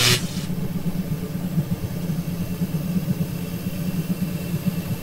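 Electric motor of a boat's power engine hatch running steadily as it lifts the hatch over the engine compartment, after a short rush of sound at the very start as it kicks in.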